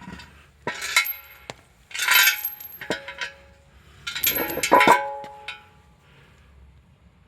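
Metal parts and tools clinking and clanging against one another in three bursts, about a second in, around two seconds in and around four to five seconds in, each with short ringing tones after the strikes.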